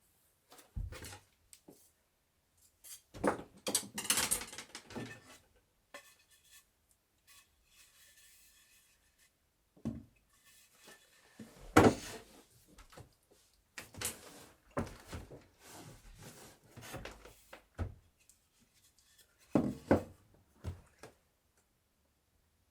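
Wooden bed parts being handled and fitted together: irregular knocks, clunks and rubbing of wood against wood, with the sharpest knock about twelve seconds in.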